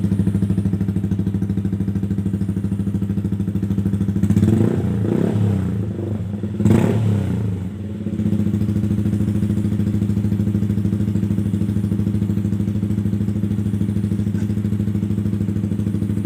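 Yamaha MT-15 single-cylinder engine breathing through an Austin Racing aftermarket exhaust, idling steadily. Its throttle is blipped twice, about four and seven seconds in, the second rev sharper, before it settles back to idle.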